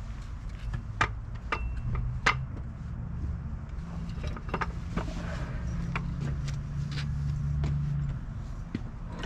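A wooden block knocked and shifted into place under a Ford 8.8 axle's differential housing on jack stands: a scatter of sharp clicks and knocks, the loudest about a second in and again a second later. A steady low rumble sits underneath and swells for a few seconds in the middle.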